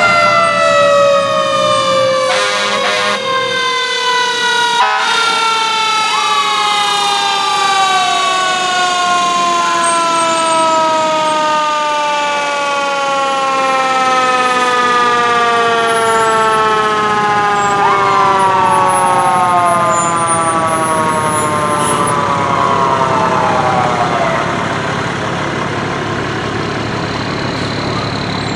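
A fire engine's mechanical siren winding slowly down in pitch throughout, as the apparatus drive past. A few short rising-and-falling whoops from another siren cut in about 6, 18 and 22 seconds in.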